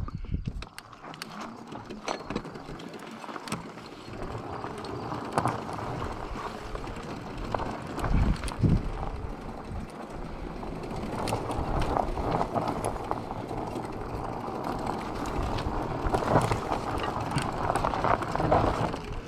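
Bafang BBSHD mid-drive e-bike under throttle at about 6 mph: the chain and derailleur drivetrain is the main noise, a steady rattle with frequent small clicks, and the motor itself stays hard to hear beneath it. A brief low rumble comes about eight seconds in.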